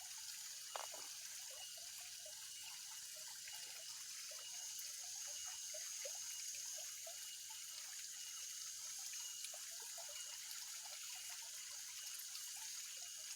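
Faint water trickling and dripping at a pond's edge, with many small scattered plinks over a steady high hiss.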